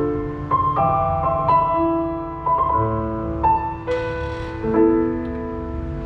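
Roland HP508 digital piano playing a slow passage of notes and chords, one about every second, ending on a held chord that fades away.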